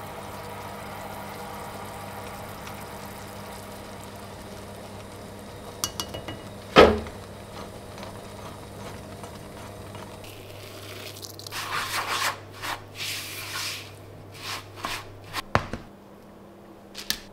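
Butter-and-syrup mixture bubbling and sizzling in a small metal saucepan on a gas stove, over a steady low hum. A spoon knocks against the pan once with a sharp clink, about seven seconds in. From about eleven seconds the spoon stirs and scrapes the foaming mixture in quick strokes.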